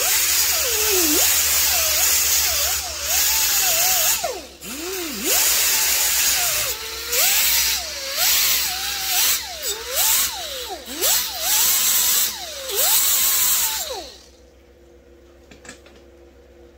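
Air-powered die grinder with a small sanding disc grinding a small metal piece held in the hand, with its air hiss and a whine that dips in pitch each time the disc is pressed into the work. The grinder stops about fourteen seconds in, leaving a few light clicks.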